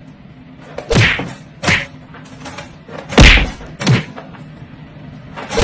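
The wire door of a plastic pet crate knocking against the crate and the dog lying in its doorway. There are four sharp knocks in two pairs, each pair a little under a second apart.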